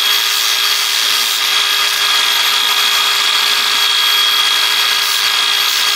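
Cordless grinder fitted with a sanding pad running at a steady whine while sanding a chainsaw chain. It is taking off the burred, mushroomed edges left on the drive links when the chain was thrown.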